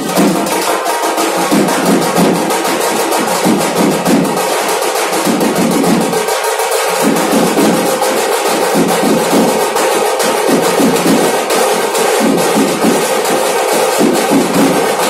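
Loud, fast dhol drumming with accompanying band music, the drum strokes coming thick and continuous.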